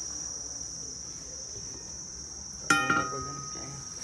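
A single sharp metallic clank about three-quarters of the way through, ringing on for about a second, as a metal motorcycle rim is knocked or set down. Under it runs a steady, high-pitched, cricket-like insect drone.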